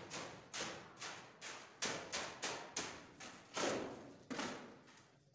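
Steel shovel scraping and chopping into a heap of wet cement mix on a concrete floor, as it is mixed by hand: a quick run of sharp scrapes, about three a second, that thins out near the end.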